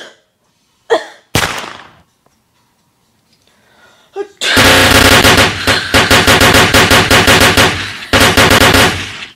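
Machine-gun fire sound: a single loud bang about a second and a half in, then a long rapid rattle of shots for about five seconds that stops just before the end.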